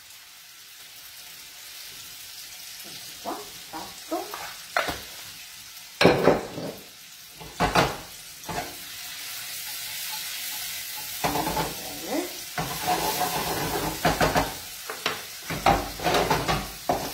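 Zucchini flower strips and asparagus pieces sizzling steadily in a frying pan, the sizzle growing louder. A wooden spoon knocks and scrapes against the pan, and near the end the pan is lifted and tossed on the burner, clattering.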